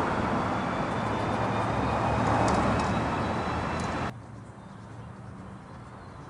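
Road traffic passing on a busy street, a loud rushing noise that swells and then cuts off abruptly about four seconds in, leaving a much quieter street background.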